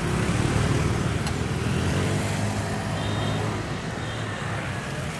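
Street traffic with a vehicle engine running close by. The engine swells about half a second in and eases off after about four seconds.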